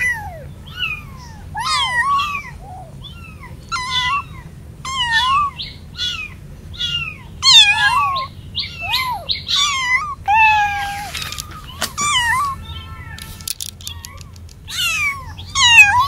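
Young kittens meowing over and over, short high-pitched calls that rise and fall, about one a second and sometimes overlapping. These are the calls kittens make to find their littermates and call their mother.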